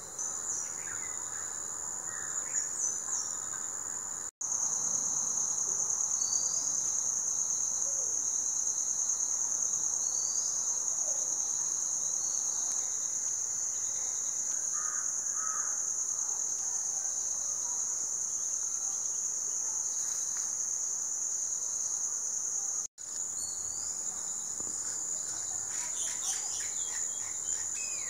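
Steady, high-pitched insect chorus with short bird chirps over it. It cuts out for an instant twice, about four seconds in and again about twenty seconds later, and a run of quick sharp chirps joins it near the end.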